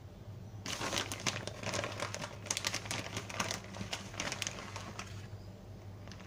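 Plastic bag of shredded mozzarella crinkling as it is tipped and shaken to scatter cheese onto pizzas. The crackling starts just under a second in and stops about five seconds in.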